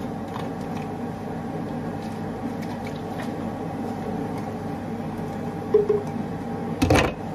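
Water and leftover blended tomato-onion masala sloshing inside a plastic BlendActive portable blender jar as it is shaken to rinse it out, over a steady background hum. A single sharp knock comes near the end.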